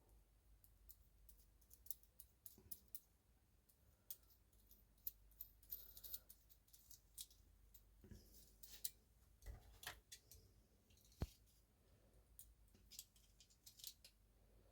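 Faint, scattered clicks and light taps of small tools and parts being handled, while a thread size is being checked and measured.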